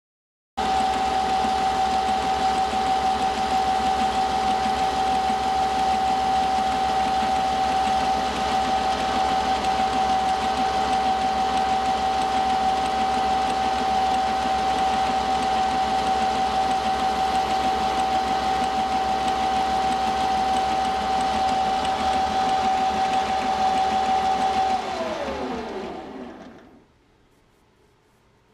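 Metal lathe running steadily with a high whine from its drive while taking a turning pass along a muzzle-brake blank. About 25 seconds in it is switched off, and the whine falls in pitch as the spindle spins down to a stop.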